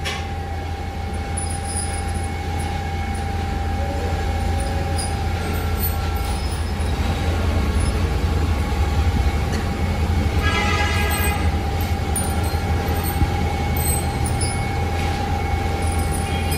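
Steady low mechanical rumble with a constant mid-pitched hum, as of machinery running; about ten seconds in, a brief high squeal rises over it.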